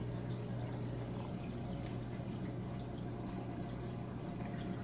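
Saltwater reef aquarium running: a steady wash of circulating, trickling water over a constant low hum.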